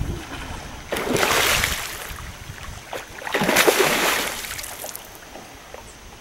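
Water splashing in two bursts, each about a second long and roughly two seconds apart, from a large hooked fish thrashing at the surface.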